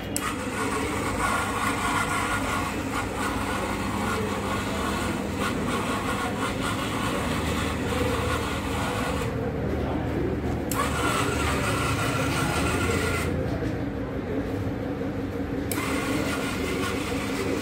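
Small 12 V DC gear motors of a model car running, a steady whine. The higher part of the whine stops twice for a second or two, about nine and thirteen seconds in, then resumes.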